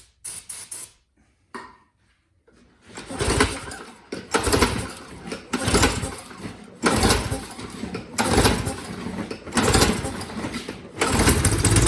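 Small four-stroke engine of a Craftsman self-propelled lawn mower being cranked by its recoil starter, about seven pulls in a row, roughly one every second and a half, the last pull lasting longer.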